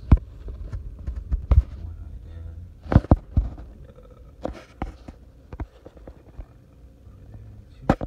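Irregular sharp knocks and clicks, loudest just after the start and about three seconds in, over a low hum that fades out partway through.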